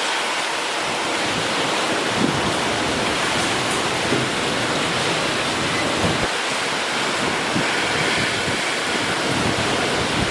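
Typhoon Hagibis wind blowing strong, a steady rushing with gusts buffeting the microphone.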